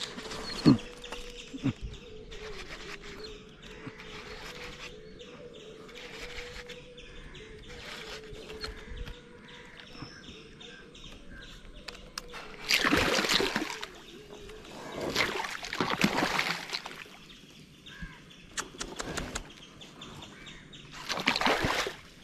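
Outdoor river ambience with birds calling and a faint steady hum through the first half. Three louder rushing noises, each a second or two long, come in the second half.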